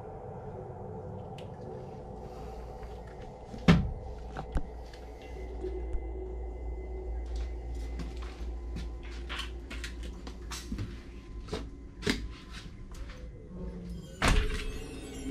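Footsteps and scattered knocks and clunks on a debris-strewn floor in a tiled corridor, echoing a little. Two louder thuds stand out, one about four seconds in and one near the end.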